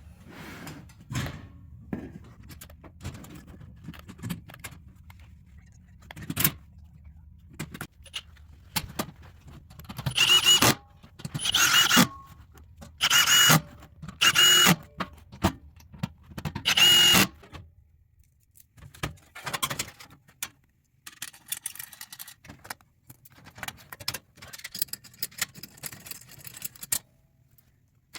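Cordless drill driving M6 screws into a stainless steel catalytic converter shield in five short bursts, with clinking and rattling of metal parts and screws between them.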